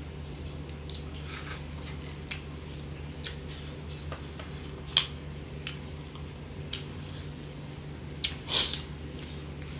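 Fingers mixing rice on a wooden board while eating by hand: scattered soft clicks and moist rustles, with a sharp click about halfway and a louder squishy rustle near the end, over a steady low hum.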